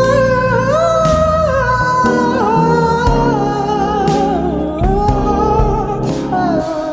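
Rock band music without words: a lead melody holds and slides between notes over bass and drum hits.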